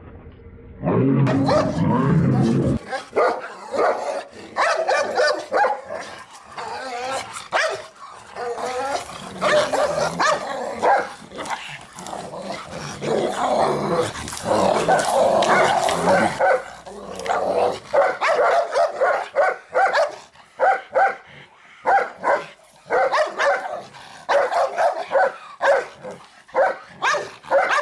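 A black Labrador and a white Maremma sheepdog growling and barking at each other in an aggressive confrontation. A low growl opens it, then barking goes on throughout and turns into a quick run of sharp, separate barks in the last ten seconds.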